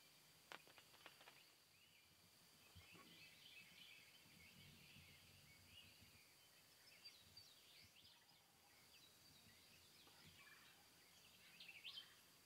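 Quiet field ambience with faint wild turkey calling among scattered songbird chirps and a steady faint high whine. A few soft clicks come about half a second in.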